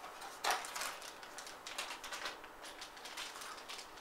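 Crinkling and rustling of plastic accessory bags and small parts being handled, in a string of short irregular crackles, the loudest about half a second in.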